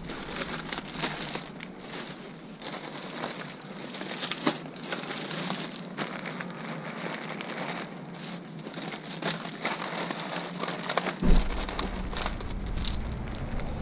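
Plastic bags and packaging rustling and crinkling as they are handled and shifted, with irregular small clicks and knocks throughout.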